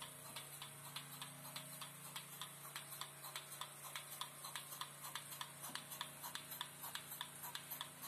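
Single-bucket milking machine at work: the pulsator on the bucket lid clicks in a quick, even rhythm, several clicks a second, over the steady low hum of the vacuum pump.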